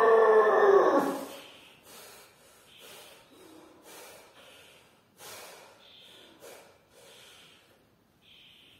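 A man's loud strained groan as he drives up out of a heavy barbell back squat, falling in pitch and ending about a second in. Then comes heavy, quick in-and-out breathing as he stands under the loaded bar between reps.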